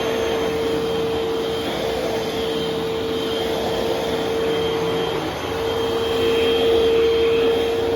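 Vacuum cleaner running steadily: a continuous rush of air with a steady motor whine.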